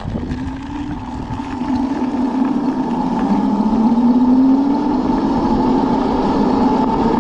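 72-volt QS90 electric motor on a micro minibike whining under way, its pitch rising slowly as the bike gathers speed, over a steady rushing noise.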